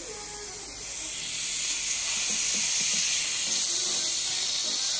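Steady hiss of a hose-fed dental instrument working at a child's teeth, getting louder about a second in.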